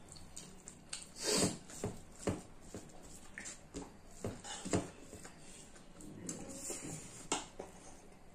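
Eating sounds: chewing and wet mouth noises with a spoon tapping and scraping a plastic plate, in short uneven bursts, the loudest about a second and a half in and again near five seconds.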